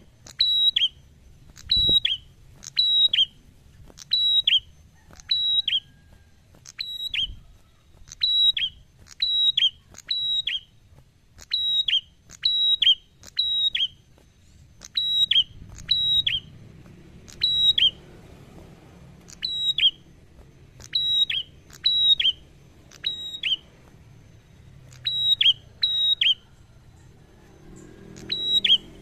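Ashy tailorbird singing a long series of loud, sharp whistled notes, each sliding quickly down in pitch, at about one and a half notes a second with brief pauses now and then.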